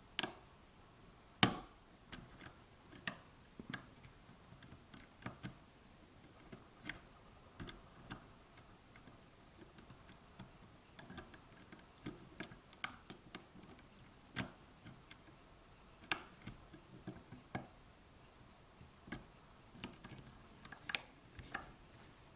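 Irregular light clicks and taps from a hook pick working the pin stack of an Abus 83/45 padlock's removable core, under top-of-keyway tension. The sharpest click comes about a second and a half in, with scattered clicks following.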